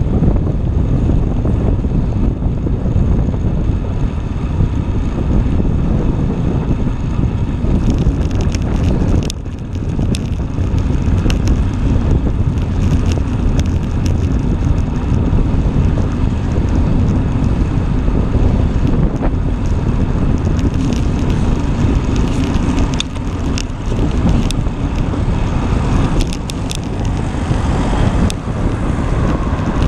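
Wind buffeting the microphone of a bicycle-mounted camera while riding, with tyre and frame rumble from the road. From about 8 seconds in, frequent light clicks and rattles are heard over the rumble.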